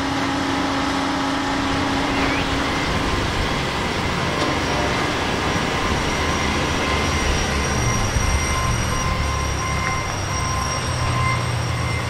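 Diesel engines of a wheel loader and a backhoe loader running as the backhoe drives in over the track ballast, the low rumble growing stronger about halfway through. Thin steady high squealing tones run over it in the second half.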